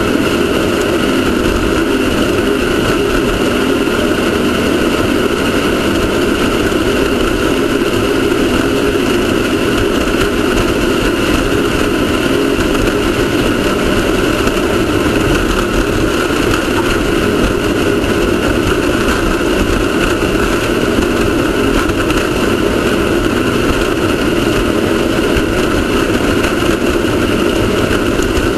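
Off-road race car's engine running steadily with a constant, unchanging noisy drone and no gear changes or revving.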